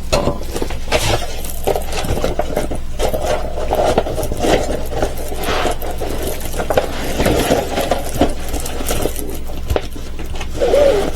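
Continuous rustling and crinkling as diamond painting canvases are handled, with small scrapes and light knocks.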